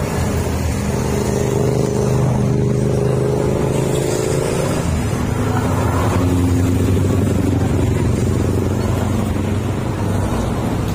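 Engines of the race convoy's cars and escort motorcycles driving slowly past close by. It is a steady engine hum, one vehicle's sound giving way to another's at a different pitch about five seconds in.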